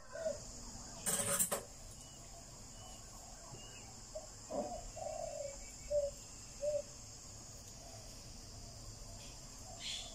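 Chickens clucking a few short times around the middle, over a steady high-pitched drone of insects, with a short noisy burst about a second in.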